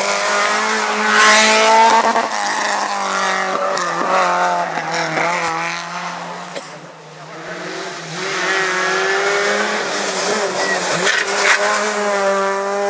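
Rally car engines at full throttle passing by, the revs climbing and dropping with gear changes. The sound fades about halfway through, and another car then comes up revving hard.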